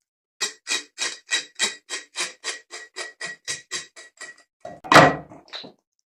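A knife working a fish on a cutting board: about fourteen quick, even strokes at roughly three a second, then one heavier knock about five seconds in.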